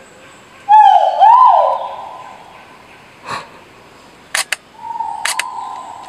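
Crested argus calling: a loud two-note whistled call about a second in, each note dipping and rising, then a longer, slowly falling note near the end. Two pairs of sharp clicks fall between.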